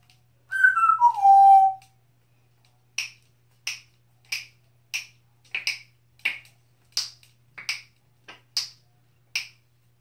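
African grey parrot whistling a loud note that steps down in pitch, then making a dozen or so sharp snapping clicks in a steady beat, about one and a half a second.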